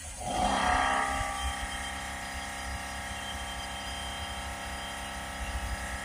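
Small portable electric air compressor switching on and running with a steady motor whine, a little louder in its first second, as it builds air pressure for a DPF cleaning gun.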